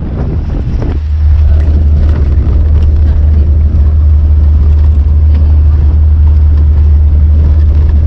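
Maruti Gypsy four-wheel-drive jeep being driven, its engine and road noise a steady low rumble with an even rushing noise over it.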